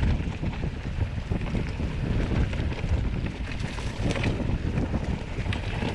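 Wind buffeting the microphone of a mountain biker's camera while riding a trail, a steady low rumble with scattered small clicks and rattles.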